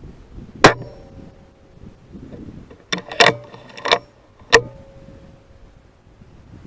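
A single sharp shot from a moderated Weihrauch HW100 PCP air rifle about half a second in, then four sharp metallic clicks, some ringing briefly, as the rifle's side-lever action is worked to chamber the next pellet.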